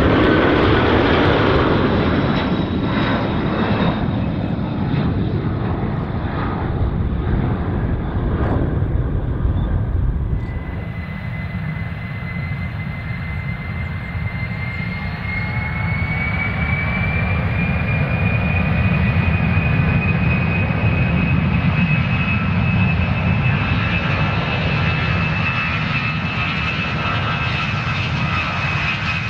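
Jet airliner engines at takeoff thrust: a loud, steady rumble with a high whine that falls slightly at first. About ten seconds in the sound changes, and a new whine appears and climbs slowly in pitch over the rest of the stretch.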